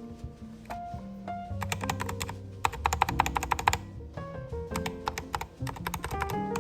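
Typing on a computer keyboard: quick runs of key clicks, starting about a second and a half in, over background music.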